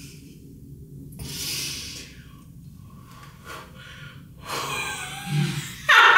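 A woman laughing almost silently, with breathy gasps between quiet stretches, breaking into a loud laugh right at the end.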